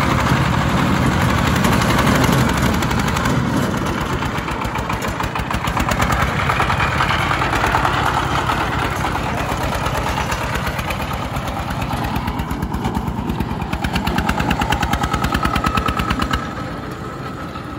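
Two-wheel công nông tractor's single-cylinder diesel engine chugging under load as it drives circles pulling its trailer, a fast, even knock of firing strokes. It gets quieter near the end as the tractor moves away.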